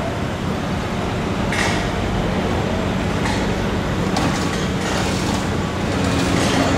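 Heavy dump truck's diesel engine running as the truck drives slowly away, a steady low engine hum, with a few short sharp noises about a second and a half in and again near the middle.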